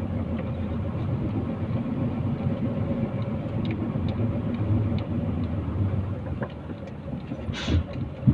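Dump truck's diesel engine running under way, heard from inside the cab as a steady low rumble. There is a short hiss about seven and a half seconds in.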